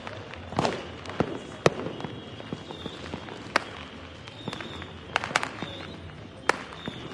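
Fireworks going off: about nine sharp bangs and cracks at irregular intervals, several in a quick cluster about five seconds in. Faint short high whistles sound between the bangs.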